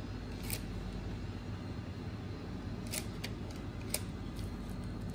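Steady low room hum, with a few faint clicks: one about half a second in, and a few around three to four seconds in.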